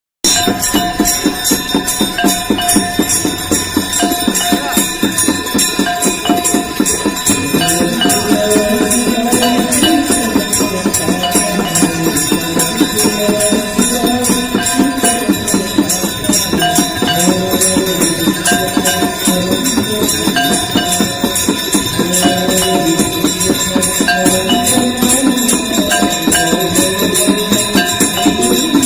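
Hand bells of the Ganga Aarti ceremony rung rapidly and without pause, with steady ringing tones over the clangs. From about seven seconds in, a devotional aarti hymn is sung over the bells.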